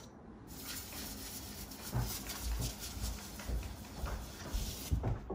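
A cloth rubbing back and forth over a quartz countertop seam, wiping and smoothing a fresh coat of seam filler. It makes a steady scuffing hiss from about half a second in to near the end, with a few soft low thumps.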